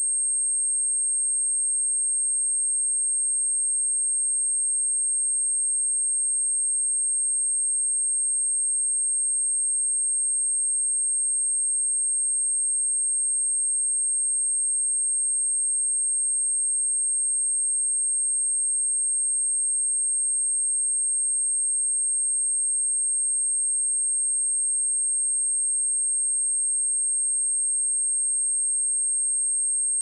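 Continuous 8481 Hz sine-wave test tone, one high-pitched pure note held at a steady level, played to test or clear dust and water from a speaker.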